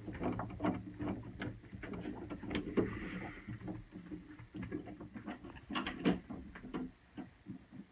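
Irregular small clicks, taps and rattles of parts being handled and fitted while the refrigerator's evaporator fan motor and its ground wire are reinstalled, with a low hum under the first few seconds.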